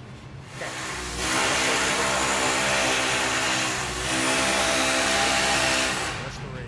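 A loud, steady whooshing noise, like rushing air or a machine, starting about a second in, dipping briefly about four seconds in, and stopping shortly before the end.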